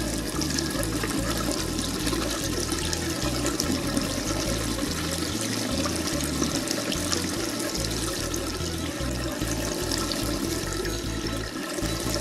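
Steady rushing noise like running water, with no speech.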